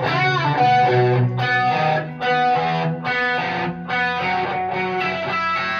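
Electric guitar played loud through a cranked Orange valve amplifier: phrases of picked notes and chords with strong attacks about once a second, opening with a bent note.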